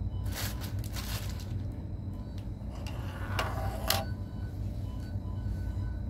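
Steady low room hum with faint background music, broken by a few short rustling and handling noises. The longest comes about three seconds in and ends in a sharp click just before the four-second mark.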